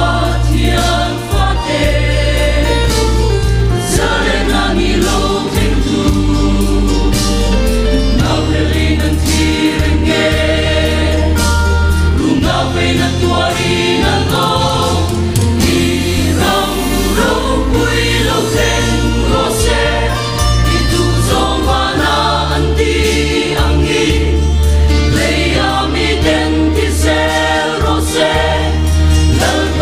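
Mixed choir of men's and women's voices singing a gospel hymn in parts, with long low bass notes sustained underneath and changing every few seconds.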